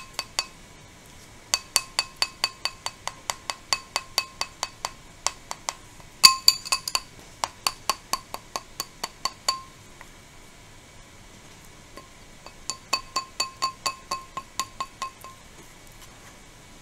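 A metal spoon tapping quickly against a dental impression tray and bowl, each tap ringing with a clear chime, in three runs of about five taps a second. The tapping stands in for a vibrator: it works the dental stone into every tooth of the impression and pushes the air bubbles out.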